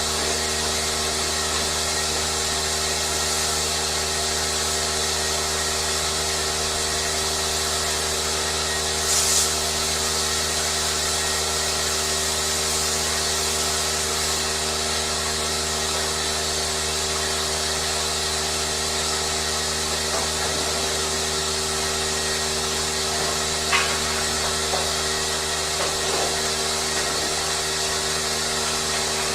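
A machine running steadily with an even hum and whir, with a brief hiss about nine seconds in and a faint click later.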